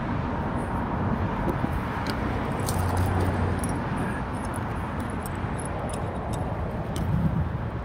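Small metallic clicks and clinks of rusty scrap-metal finds being handled, thickest in the middle, over a steady low rumble.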